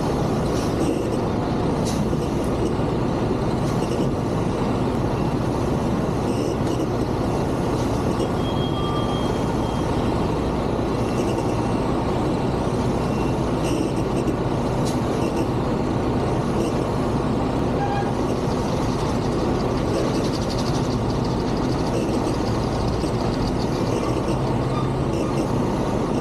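Semi truck's diesel engine running steadily at low speed while the truck reverses slowly.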